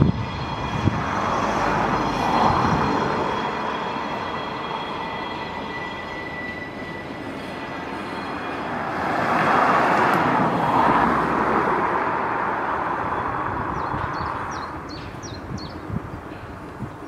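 Train made up of a Class 67 diesel-electric locomotive hauling a ScotRail Class 385 unit, rolling slowly past on the rails. The noise swells about two seconds in and again around ten seconds, with faint high-pitched whining tones over it.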